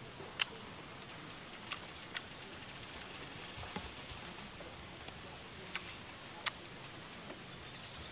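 Quiet eating sounds as food is chewed and picked from a metal tray by hand: about half a dozen short, sharp clicks and smacks, spaced irregularly over a steady faint hiss.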